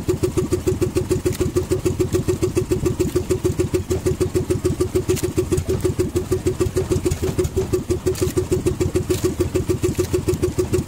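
Outrigger fishing boat's engine running steadily with a fast, even putter.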